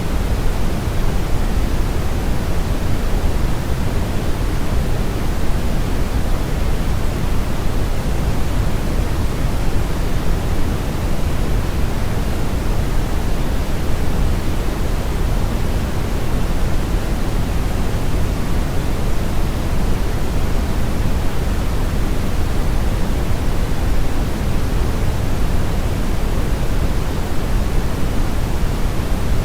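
Synthetic brown noise blended with white noise: a steady, even rush of noise, heaviest in the low end, with no change or events.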